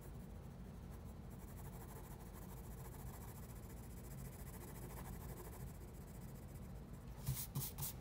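Graphite pencil faintly shading on drawing paper over a steady low hum, then a few quick, louder scratches on the paper near the end.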